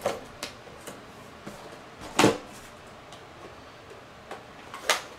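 Toy blister-card packaging of cardboard and plastic being handled as it is opened: scattered light clicks and crinkles, with two louder brief scrapes, one about two seconds in and one near the end.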